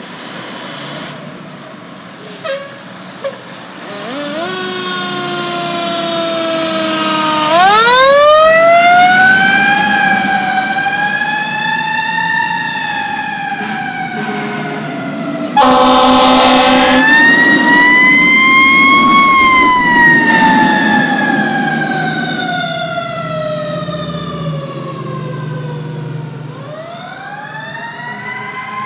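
Fire truck sirens wailing in long rising and falling sweeps as the apparatus pulls out on a call. An air horn blasts for about a second and a half midway, over diesel truck engines running underneath.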